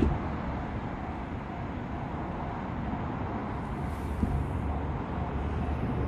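Railway level crossing warning bell ringing in a steady repeating pattern, faint against a low rumble.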